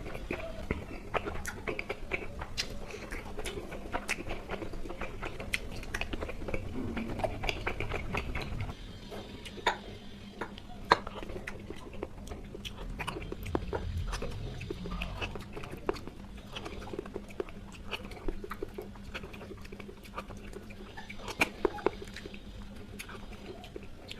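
Close-up chewing of Indian sweets: mouth sounds with many small, irregular wet clicks and smacks. Fuller and denser for the first third, then sparser.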